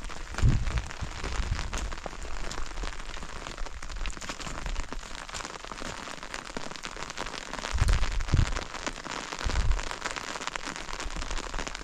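Rain pattering steadily on surfaces: a dense hiss of small ticks, with a few brief low rumbles about half a second in and again around eight and nine and a half seconds in.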